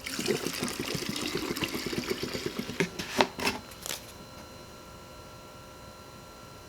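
A chainsaw's air filter and cover being fitted by hand: a rapid scraping rattle of plastic parts for about three seconds, then a few sharp clicks.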